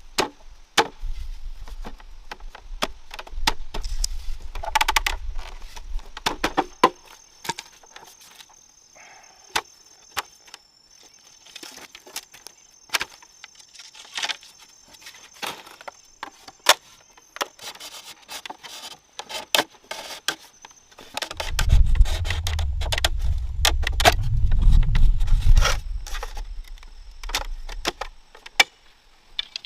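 Many sharp clicks and knocks of wood being handled and worked, with a faint steady high insect drone behind. A low rumble comes in twice, near the start and again about two-thirds of the way through, the second time loudest.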